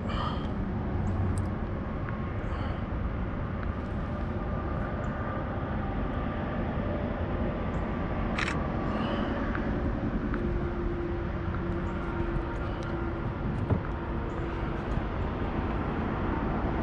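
Steady outdoor background noise on the camera microphone, heaviest in the low range, with a few faint high chirps and one sharp click about eight and a half seconds in.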